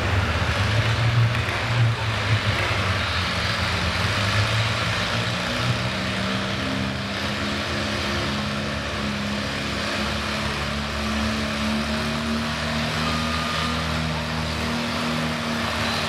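Antique Allis-Chalmers tractor's engine under a pulling load. It starts as an uneven low rumble, then settles about six seconds in to a steady, even engine note as the tractor pulls the sled.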